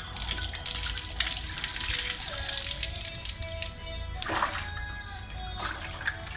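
Water pouring into a metal basin for about four seconds, then a couple of short splashes, over steady background music.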